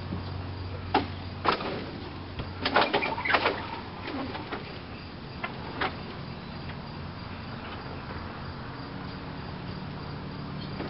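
A few sharp knocks and a short burst of clattering bangs about three seconds in, over a low steady hum.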